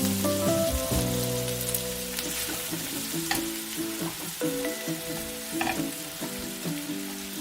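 Food sizzling as it fries in a hot pan, a steady hiss, with soft background music playing.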